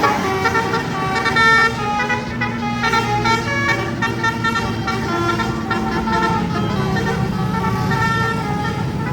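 Bus basuri horn, a multi-tone musical air horn, playing a tune of short notes that step up and down in pitch, over a low engine rumble.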